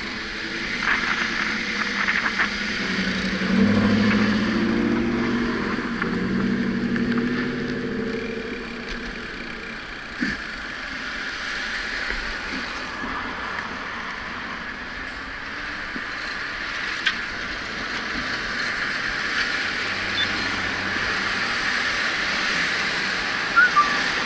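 Steady road and traffic noise around a moving bicycle, with a motor vehicle's engine passing close for several seconds in the first third. A few short sharp clicks occur later: one about ten seconds in, one midway and two near the end.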